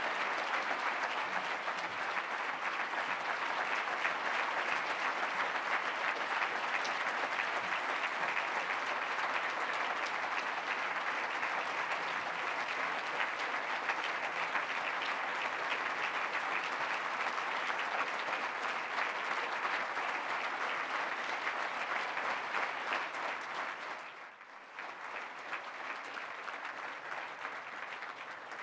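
Large audience applauding steadily; the clapping drops off abruptly near the end and carries on more quietly.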